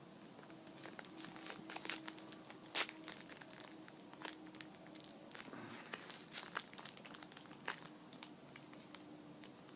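Trading card pack wrapper crinkling and tearing as it is handled and opened, a string of irregular sharp crackles.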